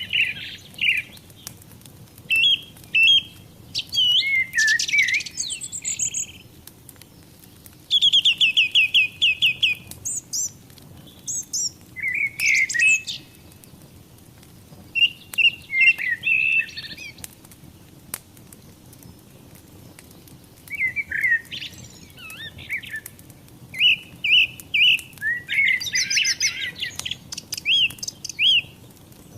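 Songbirds singing in short, varied phrases every few seconds, one a fast trill of evenly spaced notes, over a fireplace fire crackling softly with faint clicks underneath.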